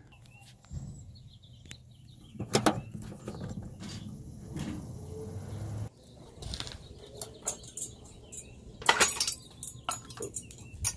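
Scattered clicks and knocks; in the second half, metal clanks of a motorcycle rear paddock stand being set under the swingarm, loudest about nine seconds in.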